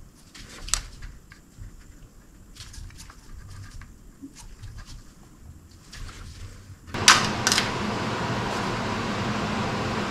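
Light clicks and taps of hand tools being handled on a metal machining setup. About seven seconds in come two sharp clicks, and then a steady machine running noise starts and keeps going.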